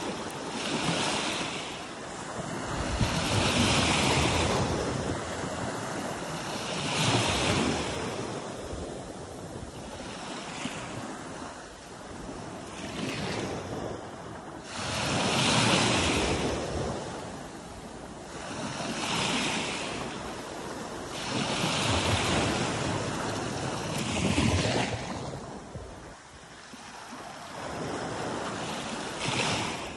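Small sea waves washing up onto the shore, each rush of surf swelling and fading again about every three seconds.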